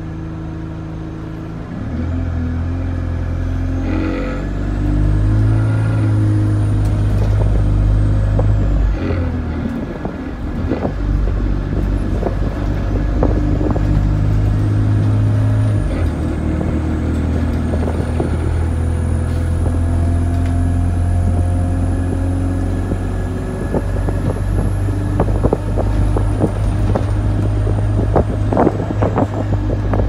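Alexander Dennis Enviro200 single-deck bus heard from inside the saloon while under way: the diesel engine's low drone changes pitch in sudden steps at about 2, 10 and 16 seconds as the automatic gearbox shifts. A faint high whine rises and falls over it, and the interior rattles and clicks more busily near the end.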